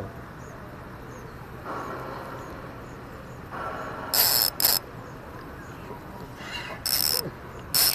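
A spinning fishing reel worked by hand: several short bursts of rapid clicking and whirring as the spool and handle turn, the first about four seconds in and the last near the end.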